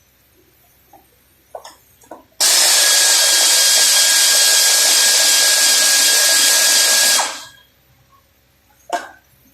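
A power tool runs at a steady pitch for about five seconds, starting abruptly and winding down. There are a few knocks just before it and one knock after.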